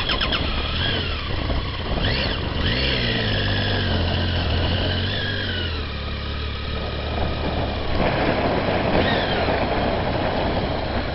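Triumph Tiger motorcycle's three-cylinder engine running at low speed, its pitch rising and falling with a few short changes of throttle.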